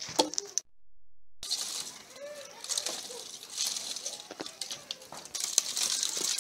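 A few sharp hatchet strikes splitting kindling at the start. After a short dropout, dry split wood sticks clatter and rustle as they are gathered by hand into a bundle.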